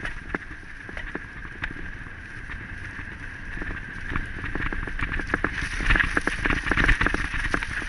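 Wind buffeting the microphone of a camera moving fast along a dirt trail, with a dense run of small knocks and rattles from the travel over the ground. It grows busier and louder about two-thirds of the way through.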